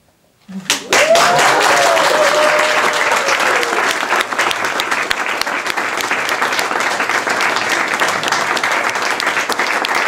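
A crowd of guests applauding, starting suddenly about half a second in and running on steadily, with one voice giving a long cheering call over the first few seconds.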